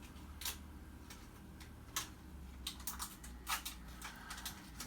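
Small, sharp clicks and ticks of a precision screwdriver and tiny screws against an iPhone's internal metal parts, coming irregularly and bunching together in the second half.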